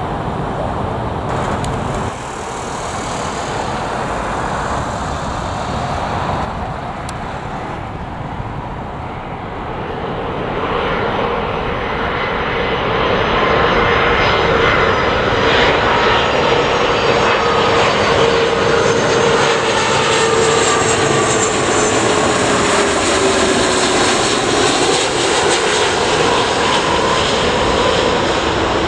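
Jet airliner on approach to land, its engine noise growing steadily louder over about the first half and then holding loud as it passes, with a whine that slowly falls in pitch.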